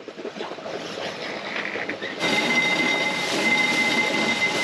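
Wind and water rushing past a sailboat under way. About two seconds in, the sound jumps to a louder rush with a steady high whine running through it.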